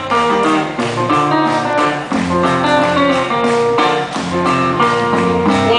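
Live guitar instrumental break with no singing: quick runs of picked notes over a lower bass line.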